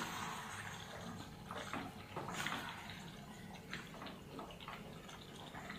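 Faint water splashing and trickling, with a few light knocks scattered through it.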